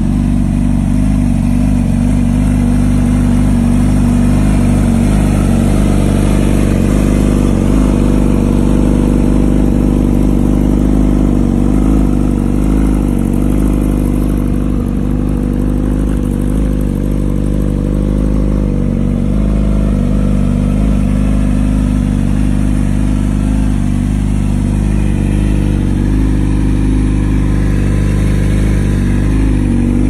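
Yamaha YZF-R6 inline-four sport-bike engine running through an Akrapovič exhaust, held at a steady idle with only slight changes in pitch.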